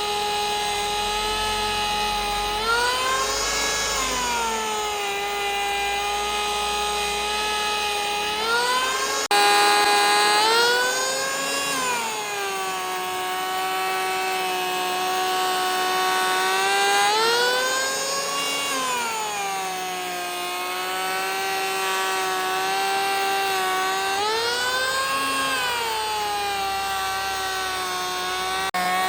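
A power tool's electric motor whining steadily. Its pitch rises briefly and then settles back about every seven seconds, as the load on it eases and returns.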